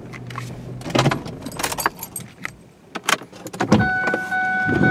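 A car being parked and opened: clicks and knocks from the controls, keys and door latch, and a low hum that stops about a second in. Near the end the car's warning chime starts, a steady tone pulsing about twice a second, as the driver's door opens.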